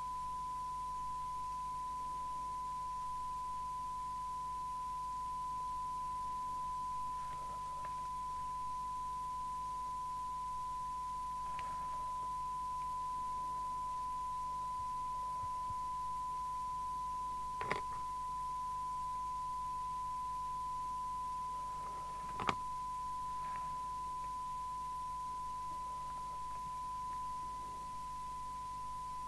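Steady 1 kHz test tone from the Maycom AH27 CB handheld's speaker: the receiver is demodulating a modulated test signal while its S-meter preset is trimmed toward S9. Two sharp clicks cut in, a little past halfway and again about five seconds later.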